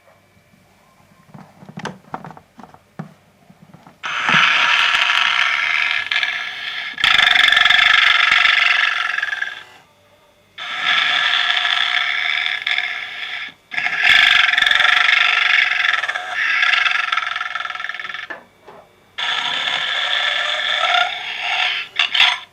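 Novelty snoring Santa toy sounding through its small speaker: a few light clicks, then four long, loud snores of several seconds each with short pauses between them.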